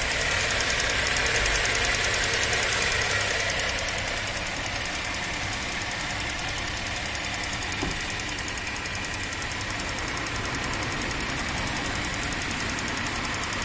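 Chevrolet Captiva's 3.2-litre V6 running with a steady, rapid ticking knock, a little louder in the first few seconds. The owner puts the tick down to a hydraulic valve lifter (lash compensator).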